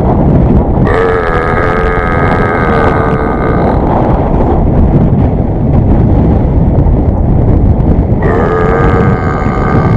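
Heavy wind noise on the microphone, with two long drawn-out vocal calls at a steady pitch: one starting about a second in and lasting some three seconds, and another starting near the end.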